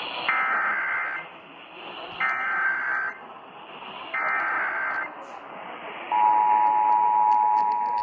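Emergency Alert System test tones heard through an AM radio over hiss: three bursts of buzzing digital SAME header data, each about a second long, marking the start of the alert. About six seconds in, the steady two-tone attention signal begins.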